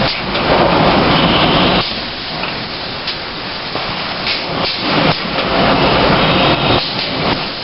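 Pneumatic pick-and-place machine on a sausage packaging line running: a loud hiss of compressed air, swelling twice for about a second and a half each, typical of the vacuum ejectors feeding the suction cups, with sharp mechanical clacks of the moving arm in between.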